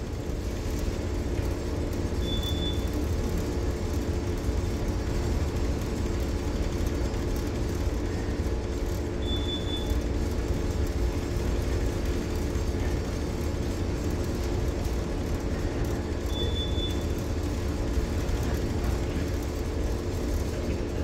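Steady low drone of a tanker's engine and machinery while the ship is under way, with a short high electronic beep three times, about seven seconds apart.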